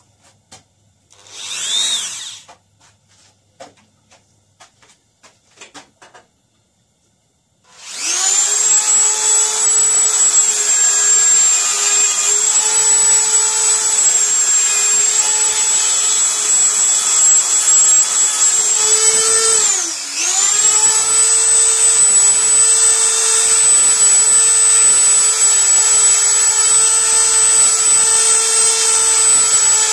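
A small high-speed rotary tool runs steadily with a high whine, grinding down the protruding wafers of a blank car lock cylinder so the original key will turn. The tool starts about a quarter of the way in, after a few small clicks and handling sounds. About two-thirds through, its pitch dips briefly and recovers.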